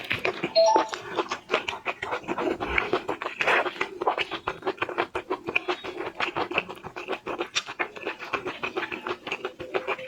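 Close-up crackling and scratching of seafood shells being handled, peeled and eaten, a dense run of quick clicks with a couple of brief squeaks less than a second in.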